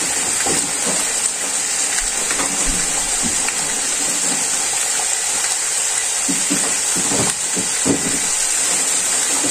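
Lamb neck pieces and sliced onions sizzling steadily as they brown in a frying pan, with a few faint knocks in the second half.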